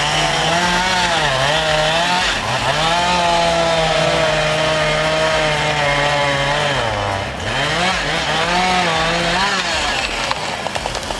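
Chainsaw running at full throttle and cutting through a large tree, its engine pitch dropping under load several times and climbing back.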